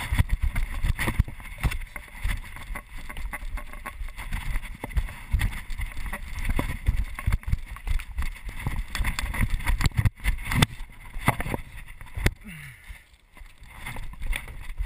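Wind rumble and handling noise on a body-worn camera during parkour running, with irregular knocks and thumps from footfalls and body movement. Two sharp knocks stand out about ten seconds in.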